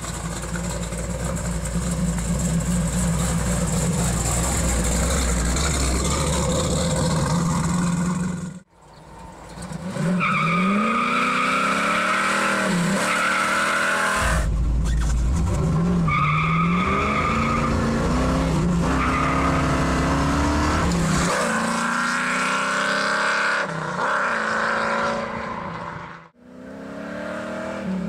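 First-generation Chevrolet Camaro SS V8 running with a deep, steady rumble, then revving hard in repeated rising pulls that drop back and climb again.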